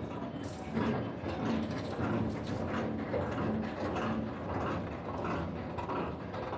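Rumble and constant rattling inside a moving vehicle, with quick clicks and knocks all through.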